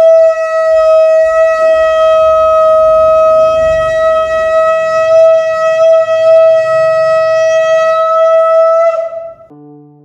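Conch shell (shankh) blown in one long steady blast of about nine seconds, a single held note that lifts slightly just before it stops. Soft keyboard music comes in faintly near the end.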